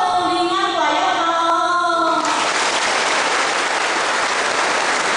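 Singing with long held notes for about two seconds, then cut off by a large audience applauding steadily.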